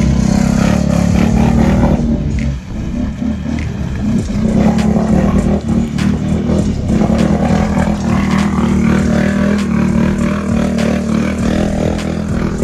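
ATV engine held at high revs, running steadily, as the quad churns through a deep water-filled mud pit, with scattered sharp clacks. It dips briefly about two and a half seconds in.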